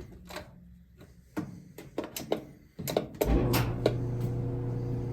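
Several clicks and knocks at a Whirlpool clothes dryer's door and controls, then, about three seconds in, the dryer starts with a steady electrical hum. The drum is not tumbling because its drive belt is shredded, and the owner takes the hum for only the heater running.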